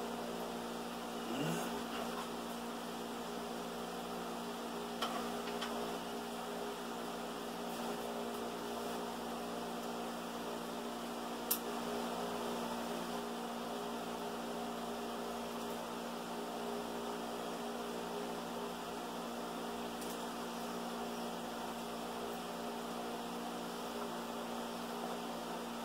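Steady electrical mains hum with several even pitched tones over a faint hiss, broken by a few faint clicks.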